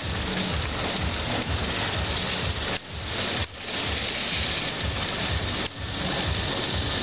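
Amusement park ambience: the rides' machinery running as a dense, steady rumble and hiss, dropping out briefly a few times.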